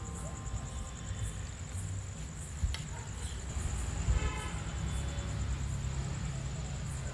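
Knife slicing a raw potato on a cutting board, with one sharp tap of the blade about two and a half seconds in, over a steady low rumble and a thin high tone that pulses about twice a second.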